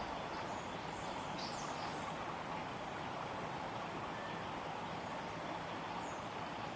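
Steady outdoor background noise, with a few faint, high bird chirps in the first two seconds and once more near the end.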